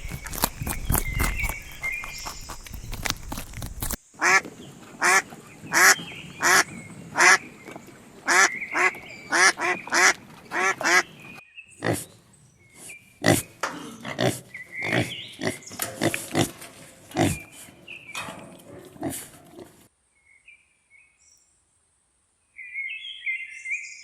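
A run of short, repeated animal calls, about two a second, with sparse chirps near the end.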